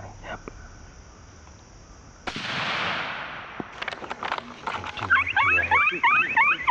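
Coyotes yipping and howling in a rapid series of short rising calls over the last couple of seconds. About two seconds in there is a sudden loud blast that fades away, followed by a few sharp clicks.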